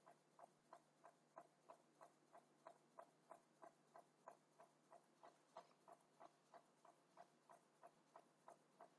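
Near silence apart from faint, evenly spaced ticking, about three ticks a second.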